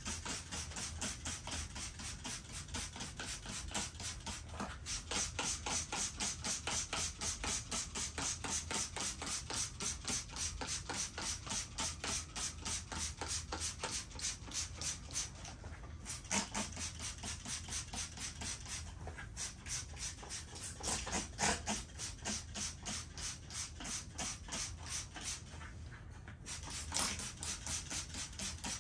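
Carpet pile being groomed by hand: quick, even brushing strokes about four a second, with a few short pauses, as the chlorine dioxide treatment is worked into the fibres over a cat-urine spot.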